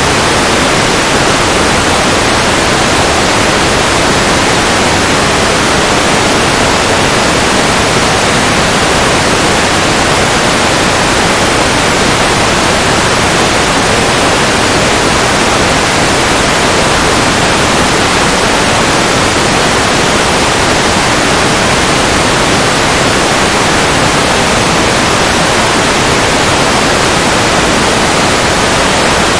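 Loud, steady hiss of static from an analog FPV video receiver in a Fat Shark Dominator2 headset with no signal: the link from the plane's video transmitter is lost, so only receiver noise is recorded.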